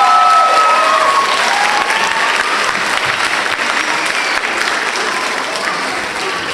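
Audience applauding and cheering, with high whoops in the first second; the clapping eases off slightly toward the end.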